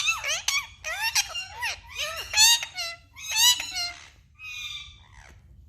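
Pet parrot giving a run of squeaky, high-pitched calls that swoop up and down, about five in a row, the last one fainter.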